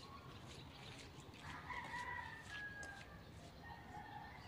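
A rooster crowing faintly: one long crow beginning about a second and a half in, followed by a shorter, weaker call near the end.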